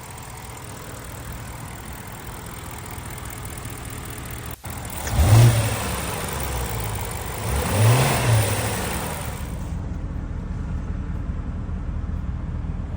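BMW E60 550i's 4.8-litre V8 idling evenly, blipped up in revs twice, about five seconds in and again about three seconds later, then settling back to a steady idle. It runs smoothly, its misfires cured by new ignition coils and spark plugs.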